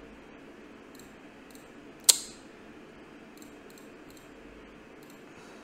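Computer mouse clicking: one sharp, loud click about two seconds in and several faint clicks scattered before and after it, over faint steady room noise.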